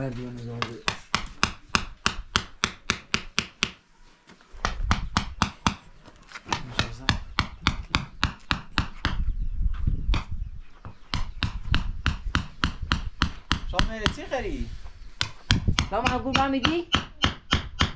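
Rapid tapping, about four taps a second, of stones and tools on a path of wet cement as white stones are set into it, with short pauses between runs.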